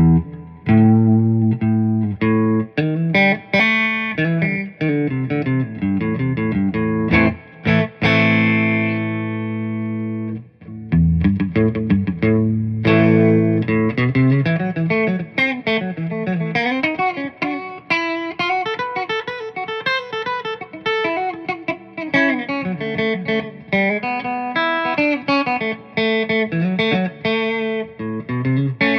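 1987 G&L SC-3 electric guitar played with a clean tone: picked single-note lines and chords. A chord is left ringing about eight seconds in and dies away, then busier single-note playing follows.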